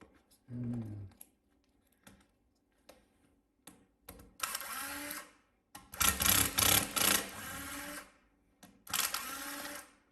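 Three bursts of scraping and clicking as laptop parts are pried apart and handled, the middle one the longest and loudest. A short low hum comes about half a second in.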